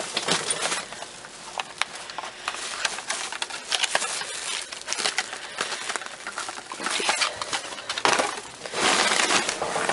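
Rummaging through discarded office supplies in a dumpster: plastic packaging and bags rustling and crinkling, with many irregular clicks and knocks of small items being shifted. It grows louder in the last couple of seconds.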